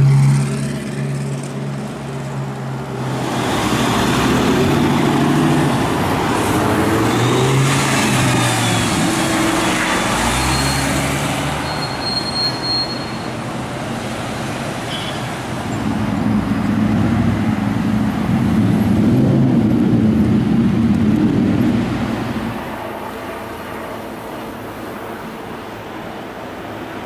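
City street traffic: car engines and tyres passing by, with two louder stretches as vehicles go past, then quieter traffic near the end.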